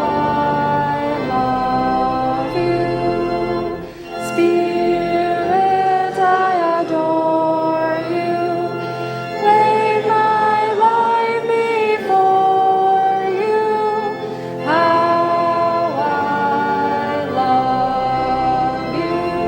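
Congregation singing a slow hymn together, with long held notes that move from one pitch to the next, over a steady low accompaniment.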